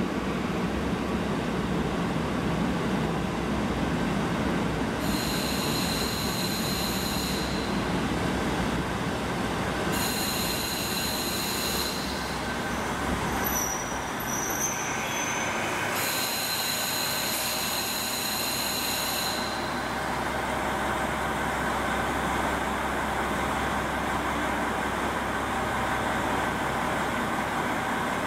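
KiHa 40 diesel railcar rolling in and braking to a stop, with three bouts of high squealing from the wheels and brakes. After it stops, its diesel engine settles into a steady low idle.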